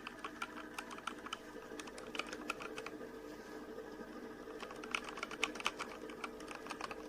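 Typing on a MetaMinor META68 65% mechanical keyboard: irregular keystroke clicks several times a second, a few louder ones about two-thirds of the way through. A faint steady hum runs underneath.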